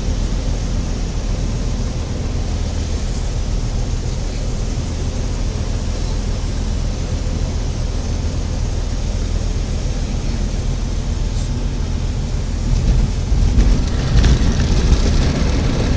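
Light aircraft's piston engine and propeller running steadily, heard from inside the cockpit with a low rumble. About thirteen seconds in the noise gets louder and rougher.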